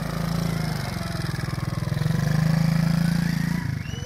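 Kazuma Falcon 90cc quad's small single-cylinder four-stroke engine running as the quad is ridden, swelling louder about two seconds in, then falling off sharply near the end.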